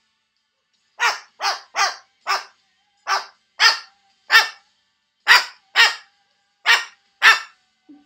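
White cockatoo barking like a dog: about eleven short, loud barks at uneven intervals. It is mimicry the bird picked up from a neighbor's barking dog.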